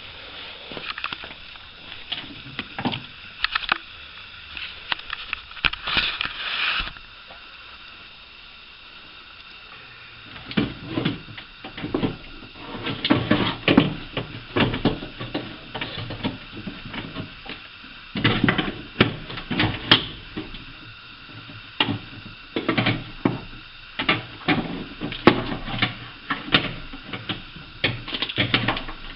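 Irregular metallic clicks, knocks and scrapes of a spanner and loosened parts as the bolts holding a window regulator assembly are undone inside a car door, sparse at first and busier from about ten seconds in.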